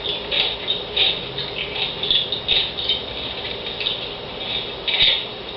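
Persistent noise: irregular bursts of high rattling, roughly two a second, over a steady hum.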